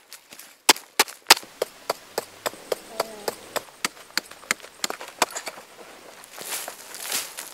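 A wooden digging stick striking hard, dry earth in quick repeated knocks, about three a second, the loudest few about a second in. Near the end the knocks give way to a scraping, crumbling sound of loosened soil.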